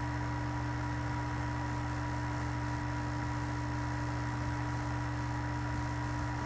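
Steady hiss of an Iwata airbrush spraying acrylic paint, over a constant hum from the air supply.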